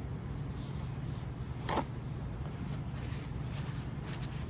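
Steady insect chorus, crickets trilling as one continuous high-pitched band, over a low steady hum, with a single short click near the middle.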